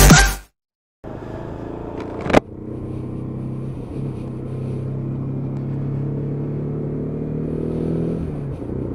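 Lexmoto Venom 125 motorcycle engine running steadily under way, heard from the rider's position, starting about a second in after a short silence. A sharp loud crack stands out about two seconds in, and the engine note dips briefly near the end.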